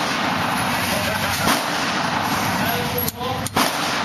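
A single sharp gunshot on a shooting range about a second and a half in, over a steady noisy background with faint voices.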